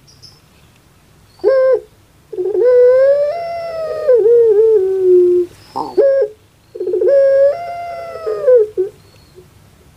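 Female puter pelung (Barbary dove) cooing in the rhythmic 'crying' style: twice, a short note followed by a long drawn-out coo that rises a little, then wavers and falls away at its end.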